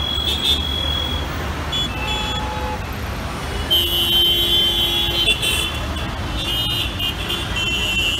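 Dense, slow-moving road traffic of cars, auto-rickshaws, motorcycles and buses: a steady engine rumble with repeated high-pitched horn honks. The honks are short near the start and about two seconds in, then longer and overlapping from about four seconds in and again near the end.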